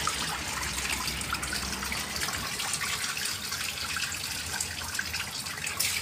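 Water from a hose running and splashing over small plastic and rubber parts onto a tiled floor: a steady, even splashing hiss, as the washing machine's clogged detergent inlet parts are rinsed clean of dirt.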